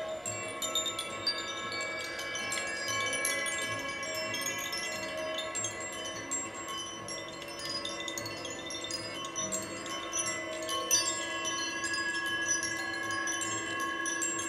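Handheld tuned wind chimes of the Koshi and Zaphir kind tinkling continuously over held drone tones. About halfway through, a low held tone grows stronger and wavers slowly.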